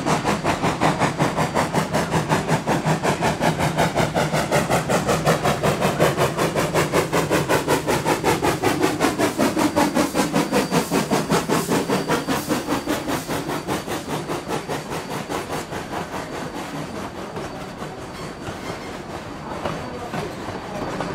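Rio Grande Southern #20 narrow-gauge steam locomotive working past with its train, a quick, even run of beats. It fades away in the last third.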